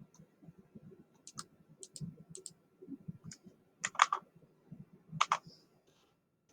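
Computer mouse and keyboard clicks: a handful of sharp clicks, the loudest pair about four seconds in, over softer irregular tapping.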